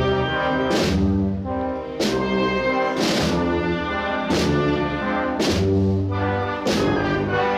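Brass band playing a slow Holy Week processional march, with sustained brass chords over a percussion strike about once a second.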